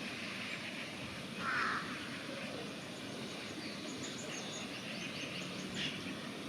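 Raven giving one short harsh call about a second and a half in, over steady outdoor background noise. A run of faint high-pitched ticks follows in the second half.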